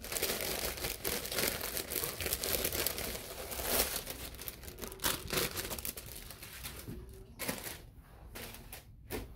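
Thin clear plastic bag crinkling and rustling as a stack of laser-cut plywood sheets is slid out of it. The crackling is dense for the first several seconds, then thins out to a few scattered rustles and light taps near the end.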